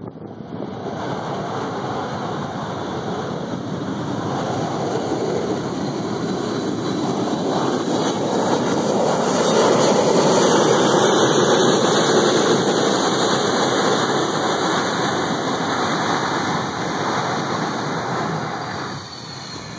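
Jet engines of an Insel Air McDonnell Douglas MD-80 at high power as the airliner rolls past along the runway. The noise carries a high whine and swells to its loudest about ten seconds in, then fades as the plane moves away.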